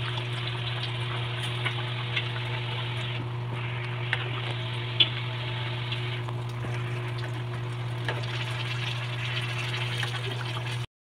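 Chicken curry bubbling as it simmers in a metal pan, stirred now and then with a ladle, with a few light clicks and one sharp click about five seconds in. A steady low hum runs underneath.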